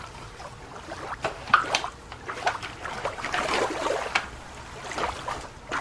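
Water sloshing and trickling in uneven splashes, with small clicks between them, as a toy is moved in shallow water.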